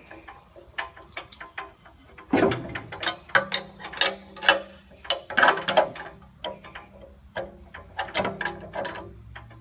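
Hand ratchet wrench tightening the nut on a carriage bolt: the pawl clicks in quick runs on the return strokes, between metal clinks of the tools against the steel.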